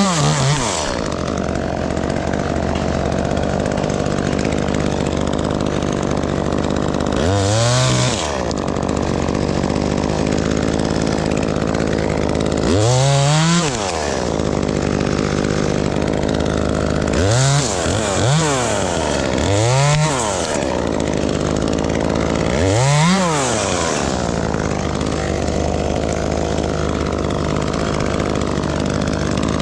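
Gas chainsaw idling steadily and revved up briefly several times, each rev rising and dropping straight back to idle.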